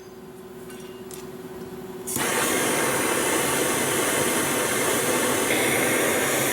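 Gas heating torch burning with a loud, steady rushing hiss, switched on suddenly about two seconds in after a faint steady hum, as it heats the planter hitch housing to expand the bore for a tight press-fit bushing.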